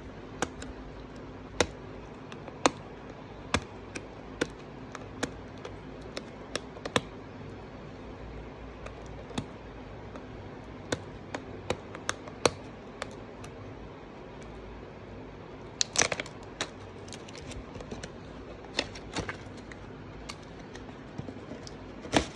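A small cardboard retail box being handled and opened: scattered light taps and clicks as it is turned and its flaps and seal are worked, with a short burst of packaging crackle about sixteen seconds in. A faint steady hum runs underneath.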